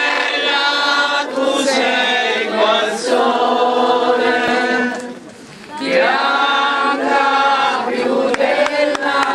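A crowd singing a religious hymn together, mixed voices in unison, in two sung phrases with a short break about five seconds in.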